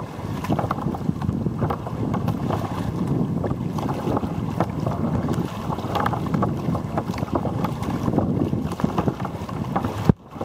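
Wind buffeting the microphone of a camera on a sea kayak's bow, with choppy sea water splashing against the kayak's hull. Near the end comes a sharp knock, then a moment of muffled quiet.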